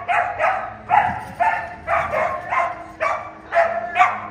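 Dog barking steadily, about two to three barks a second, in excited barking while it runs an agility course.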